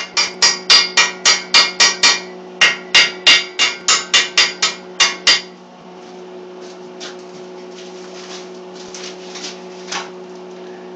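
Hammer striking steel in quick, ringing blows, about four a second, with a short pause after two seconds. The blows stop about halfway through, leaving only a few faint taps and scrapes over a steady low hum.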